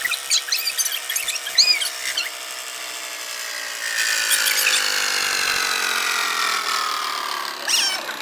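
Short squeaky rubbing chirps, then a small power tool's motor running with a pitch that slowly falls.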